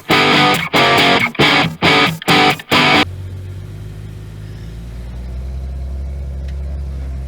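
Rock music with electric guitar in short, loud rhythmic stabs, cutting off about three seconds in. After that, a steady, quieter low rumble of an engine idling.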